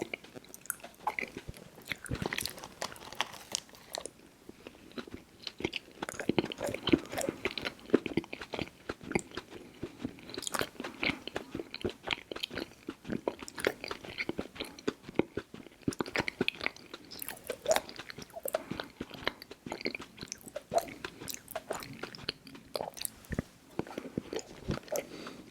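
Close-up mouth sounds of someone biting and chewing Little Debbie Birthday Cakes: a steady stream of irregular wet smacks and clicks.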